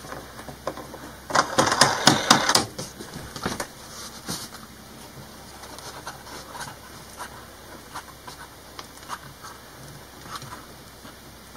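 Small metal clicks and rattles as a washer and nut are fitted by hand onto the bolt of a Murphy bed lock: a quick run of clicks about a second in, then scattered light ticks.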